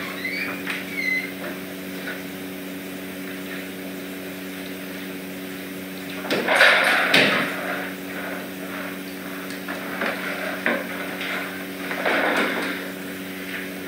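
Clatter of a food dish being set down on the floor about six seconds in, followed by scattered knocks and rustling as bedding and toys are handled, over a steady low hum.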